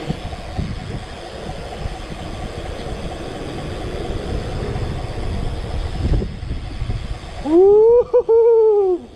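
BMX bike rolling over street pavement: a steady rumble of tyres and wind on the microphone, with a couple of low knocks. Near the end a loud pitched wail rises, holds with a short break, and falls away over about a second and a half.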